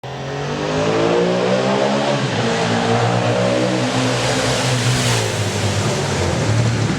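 Yamaha XSR700's 689 cc parallel-twin engine accelerating. Its pitch climbs, then falls back at a gear change about two seconds in and again about five seconds in.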